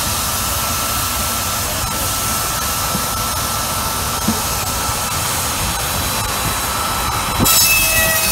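Steam-powered Charles Powis & Co. saw bench running, its large circular blade spinning with a steady rush and a faint whine. About seven and a half seconds in the blade starts cutting into a timber board, and the sound gets louder with a higher ringing tone.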